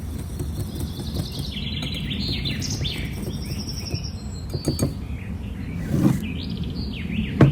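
Small birds chirping and twittering over a steady low hum, with a few soft knocks, the loudest about six seconds in.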